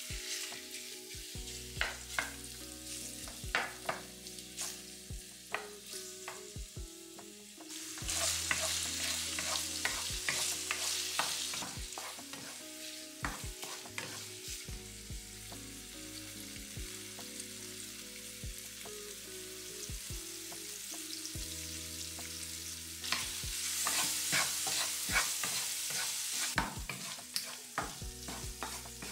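Chicken breast pieces sizzling in olive oil in a nonstick frying pan while a wooden spatula stirs them, with frequent clicks and knocks of the spatula against the pan. The sizzle swells louder twice, about eight seconds in and again past the twenty-three-second mark.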